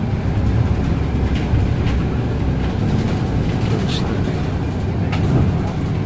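Steady low rumble of a city bus's engine and road noise, heard from inside the moving bus.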